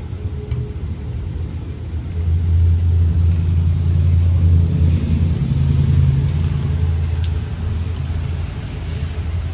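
Low rumble of a motor vehicle engine that swells about two seconds in and eases off after about seven seconds.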